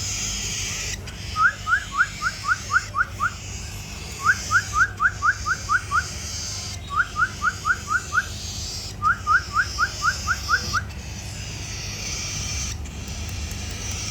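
A bird chirping in four runs of seven or eight quick rising whistled notes, about four notes a second, over a steady hiss.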